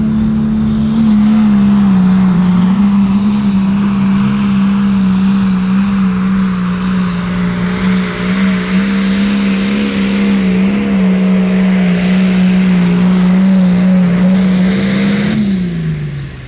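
Hot farm pulling tractor's diesel engine held at full throttle under heavy load as it drags the pulling sled, a loud steady engine note over a rushing roar. Near the end the pitch falls sharply and the sound drops away as the throttle comes off at the end of the pull.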